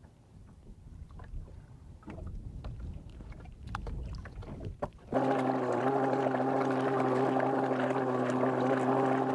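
Faint ticks of fishing line and hooks being handled, then, about five seconds in, a boat motor cuts in abruptly with a steady hum of several fixed tones that runs on unchanged.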